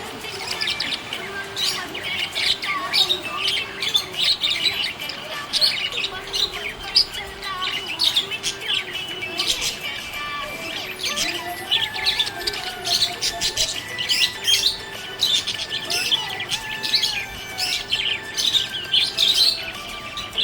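Budgerigars chirping in rapid, overlapping short calls, with no break.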